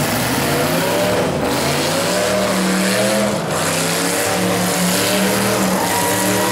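Several full-sized demolition derby cars' engines running and revving hard together, their pitches rising and falling.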